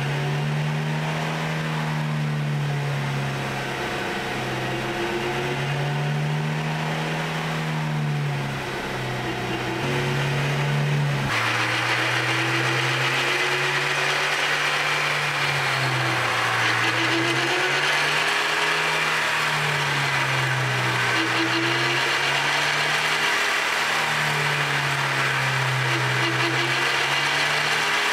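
Whine from a defective differential drive pinion bearing under acceleration, its pitch rising and falling every few seconds. About eleven seconds in, the low rumble drops away and a broad hiss comes up under the whine.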